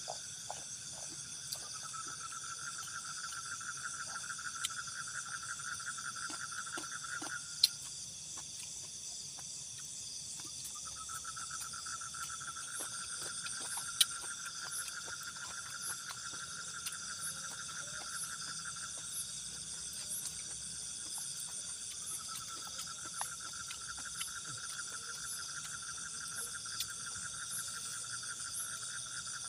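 Night insect chorus of crickets and other insects calling steadily and high-pitched. A lower pulsing trill comes in three long bouts of about seven or eight seconds each. Two sharp clicks stand out, one about eight seconds in and one about fourteen seconds in.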